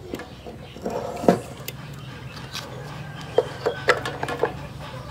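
Plastic spool of flux-core welding wire being handled and pushed onto a MIG welder's spool holder: sharp clicks and knocks, one about a second in and a quick run of them near the end.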